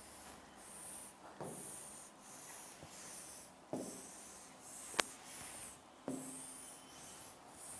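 Pen strokes rubbing across a digital whiteboard as a diagram is drawn: a faint series of short strokes, with a sharp click about five seconds in.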